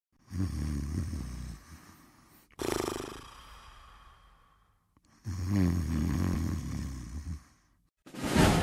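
Snoring: two low, pulsing snores about five seconds apart, with a fading breath out between them. Music starts near the end.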